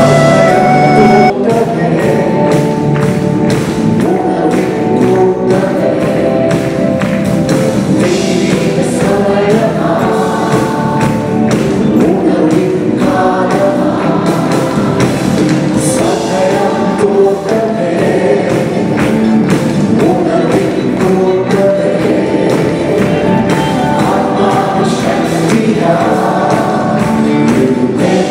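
Mixed choir of men and women singing a gospel song in chorus over instrumental accompaniment, with a steady percussive beat.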